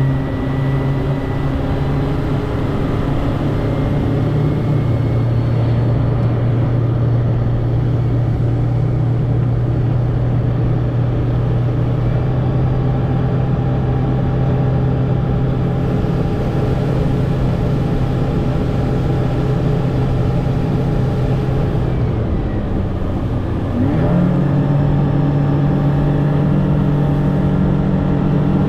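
Boat motor running steadily under way, its revs dropping briefly a few seconds before the end and then rising back up to speed.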